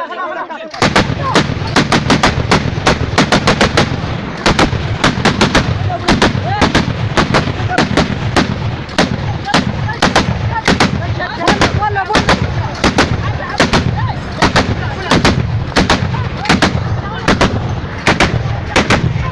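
Tripod-mounted machine gun firing at close range in rapid, repeated bursts of loud, sharp shots, several a second, starting about a second in and keeping on without a break.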